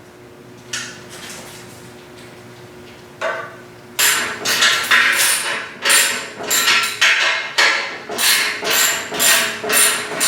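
A hammer repeatedly striking metal kart chassis parts, two to three blows a second with a metallic ring, starting about four seconds in. Before that there are a faint steady hum and two single knocks.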